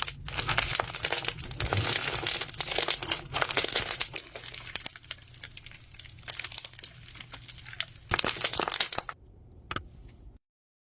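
Crystal-clear slime with frosted stones mixed in, squished and stretched by hand: a dense, sticky crackling and popping, loudest in the first few seconds and again in a burst near the end, stopping about nine seconds in with one last small click.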